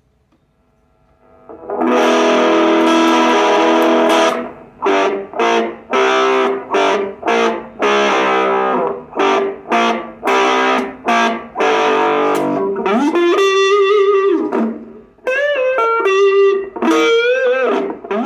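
Electric guitar (Stratocaster) played through a Marshall MS-4 mini amplifier with distortion. It opens with a long held chord, then about a dozen short chopped chord stabs, and near the end a single-note lead line with bends and vibrato.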